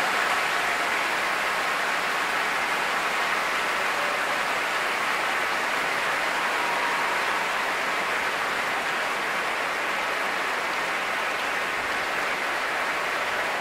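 Large concert-hall audience applauding, a dense, steady roar of clapping.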